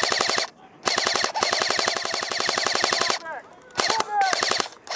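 Airsoft electric rifle firing full-auto bursts with a fast, even clatter of shots. A short burst is followed by a long burst of about two seconds, then two brief bursts near the end.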